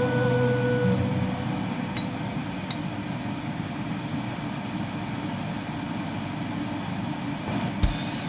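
Music with singing stops about a second in, leaving a steady low mechanical hum, with two faint clicks about two seconds in. Music with drums comes back in near the end.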